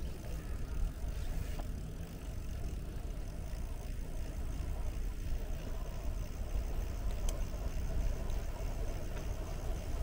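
Steady low rumble of wind on the microphone and tyres rolling as a bicycle rides along a paved path.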